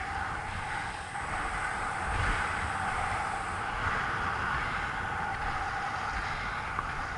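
Wind buffeting the microphone with a low rumble while moving at about 25 to 30 km/h, over a steady hiss of inline skate wheels rolling on asphalt.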